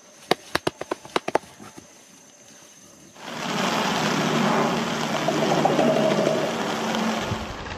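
A gorilla beating its chest: a quick run of sharp, hollow pops for about a second and a half. After a pause, a loud, steady rushing noise starts about three seconds in and carries on almost to the end.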